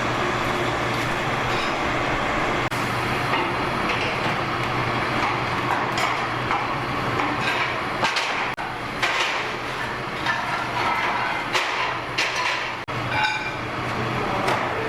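A steady machine hum with irregular sharp metallic clanks and clicks over it.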